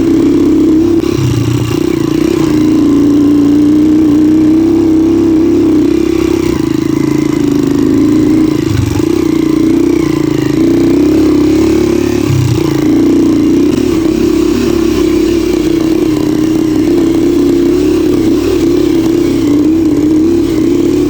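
Motorcycle engine running steadily while under way, its pitch rising and falling a little with the throttle.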